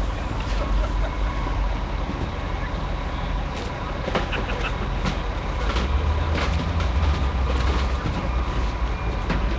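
Heavy vehicle engines running with a steady low rumble, with scattered sharp knocks and clatters from about three and a half seconds in.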